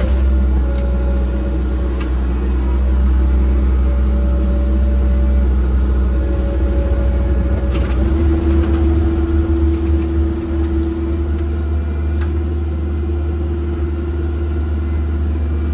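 Engine of a land-clearing machine running steadily under load. About eight seconds in, its tone shifts to a new steady pitch.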